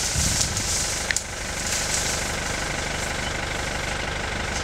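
Safari jeep's engine idling steadily, with one sharp click about a second in.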